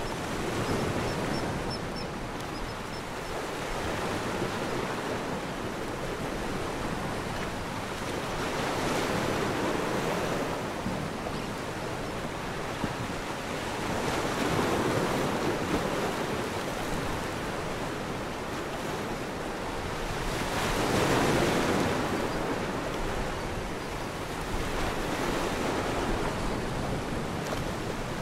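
Ocean surf: waves washing in with a steady rushing hiss that swells and fades every few seconds, the biggest swell about three quarters of the way through.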